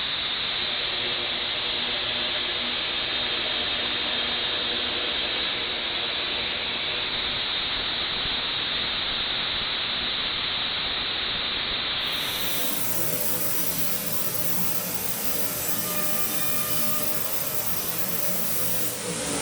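CNC router cutting a wood sheet: a steady rushing noise with faint hums underneath. About twelve seconds in the sound changes abruptly in character, brighter and with lower hums.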